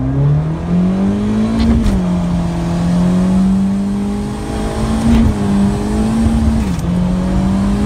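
Turbocharged Honda Civic engine pulling hard under about 14 psi of boost, heard from inside the cabin. The revs climb steeply for about two seconds, drop at a gear change, then hold nearly level with a couple of brief dips in third gear, where the transmission is slipping.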